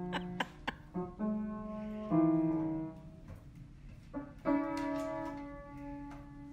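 Upright piano keys pressed by a dog's front paws: several clusters of notes struck at uneven intervals, each left to ring and fade.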